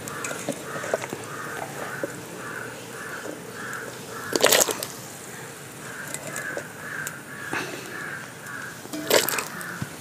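A crow cawing twice, about four to five seconds apart, over a faint note repeating about twice a second.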